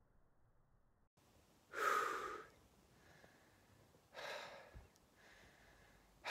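A man breathing heavily through his open mouth, worn out after a long run: two loud breaths about two and a half seconds apart, starting a couple of seconds in, then a fainter one.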